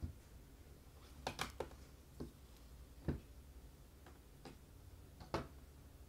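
Scattered taps and knocks of makeup palettes being set into a clear acrylic palette organizer: a quick run of three taps about a second in, with the loudest knocks around three and five seconds in.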